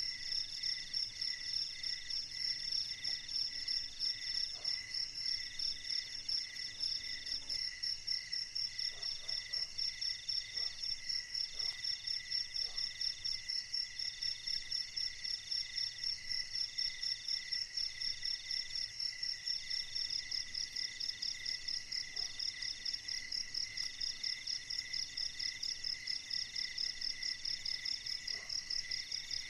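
Crickets chirping in a steady chorus: a high, evenly pulsing trill of about three pulses a second, with another insect's higher chirps coming in runs of about a second between short gaps.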